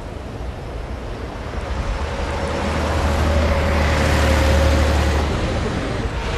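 A coach bus driving past on a highway: its engine hum and tyre and wind noise build as it approaches, are loudest as it passes close about four seconds in, then drop away.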